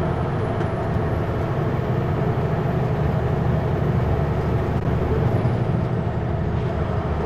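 Kenworth W900L semi truck driving at a steady pace: constant diesel engine hum and road noise heard from inside the cab.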